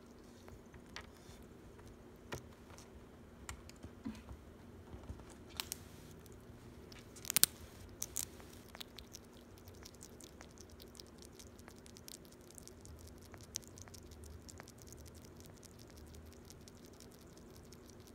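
A small pet chewing and crunching a treat: scattered small clicks and crackles, with a louder cluster of sharp clicks about seven seconds in. Under it, a faint steady hum and a dog snoring softly.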